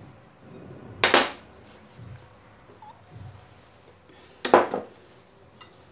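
Two sharp clacks of kitchen utensils being handled, about three and a half seconds apart, each ringing briefly.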